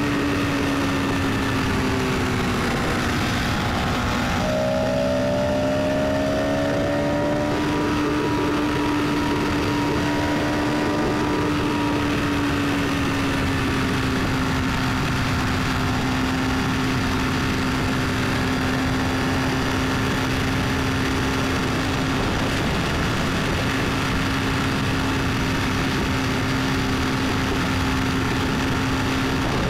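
A car on the move: steady engine and road noise with a hum that wavers a little in pitch over the first dozen seconds, then holds steady.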